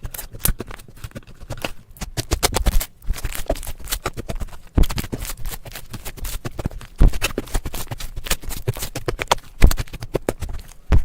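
Slime being squished and handled, giving a quick, irregular run of sharp wet clicks and pops, with a few louder ones now and then.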